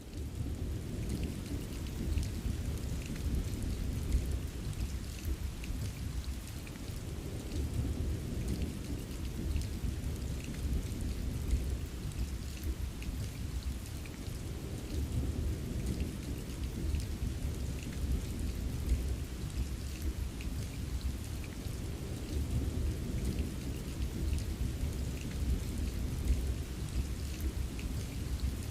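Steady rain ambience: continuous rainfall with a deep, constant low rumble beneath it, like distant thunder, and faint scattered drop ticks.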